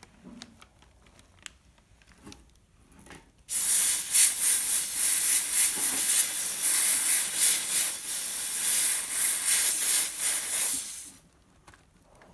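Handheld sandblaster hissing as it blasts the inside edges of a stained glass lampshade's top opening, cleaning the metal so solder will stick. The blast starts abruptly about three and a half seconds in and cuts off about eleven seconds in, after a few faint clicks.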